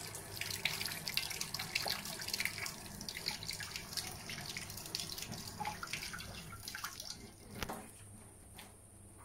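Tap water running and splashing over a corn cob turned in the stream, falling into a stainless steel sink; the splashing dies down near the end.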